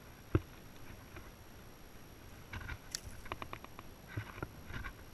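Knocks and bursts of quick rattling clicks from a landed largemouth bass flapping while it is held up: one sharp knock about a third of a second in, then clusters of clicks and taps over the last few seconds.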